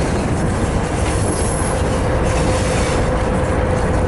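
Virginia & Truckee Railroad passenger train rolling along the track, heard from an open car: a steady rumble of wheels on rail with a steady whining tone over it.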